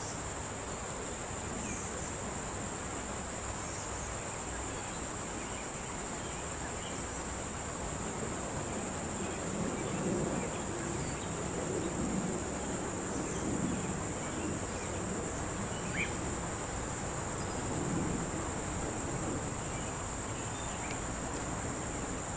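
Insects singing in a steady, high-pitched, unbroken drone.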